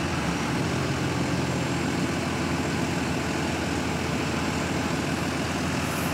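Engines of two heavy forklifts running steadily as they carry a lathe of about 45,000 pounds between them.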